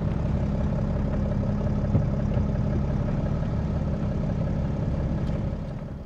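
Car engine idling steadily, fading away near the end.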